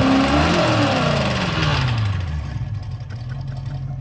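Glastron runabout's sterndrive engine revved on its trailer out of the water: the revs rise and fall twice, then drop back to a steady idle about two and a half seconds in.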